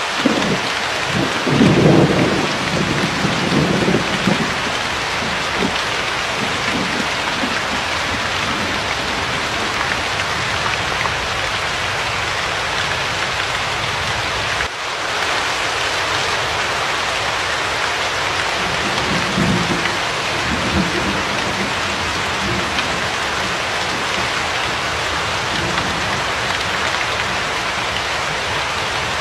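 Steady heavy rainfall with rolling thunder: a low rumble swells about a second and a half in and lasts a few seconds, and a weaker one rolls through about two-thirds of the way in.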